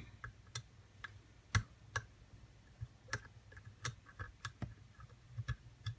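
Lock pick and tension wrench working the pin stack of an ABUS padlock: small, sharp metallic clicks at irregular intervals. A faint low hum lies underneath.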